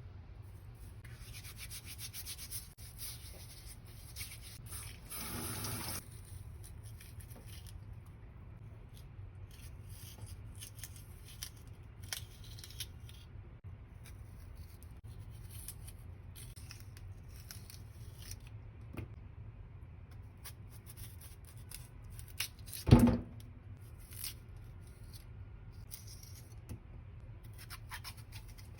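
Hands preparing food in a kitchen: soft rubbing and scraping with scattered light clicks over a steady low hum, and one loud knock about three-quarters of the way through.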